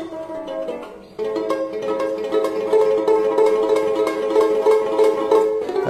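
Background music: a plucked string instrument playing a melody in quickly repeated notes, louder from about a second in.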